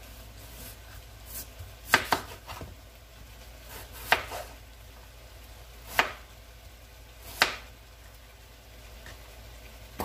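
Knife cutting peeled potatoes into chunks: sharp knocks as the blade goes through and strikes the board, a quick pair about two seconds in, then single ones roughly every two seconds.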